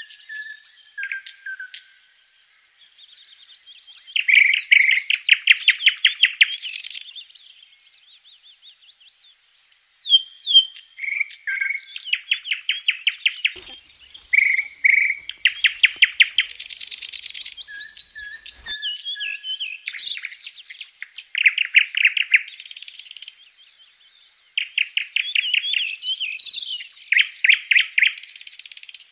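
Songbirds singing in woodland: repeated phrases of quick trilled notes from more than one bird, with a short lull about nine seconds in.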